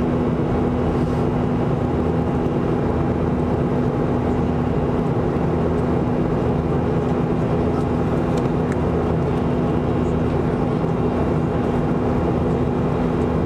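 Steady engine and airflow noise inside the cabin of a Boeing 737-400 climbing after takeoff, its CFM56-3 turbofans running at climb power, with a steady low hum.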